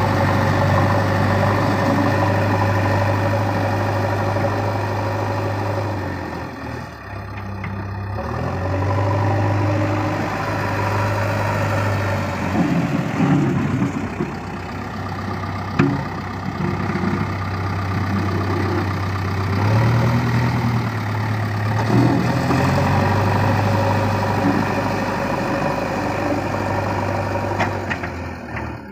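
Diesel engine of a JCB 3DX backhoe loader running steadily, dipping briefly about seven seconds in, with its note shifting during the middle part.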